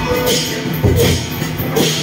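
Temple procession music: a melody carried over drums, with a crash of percussion about every three-quarters of a second.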